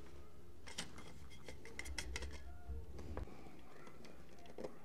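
Small hand screwdriver driving a mounting screw into a plastic thermostat backplate: a run of light clicks and scrapes lasting a couple of seconds, over a low rumble, then quieter handling with one small click near the end.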